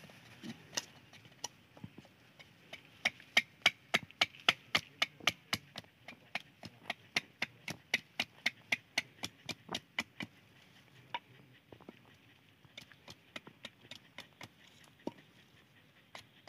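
A blade chopping on wood in quick, even strokes, about three a second, loudest through the middle, with slower scattered strikes before and after.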